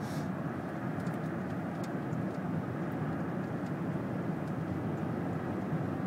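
Steady road noise inside a moving car's cabin: tyres running on a snow-covered road, with the engine's hum beneath.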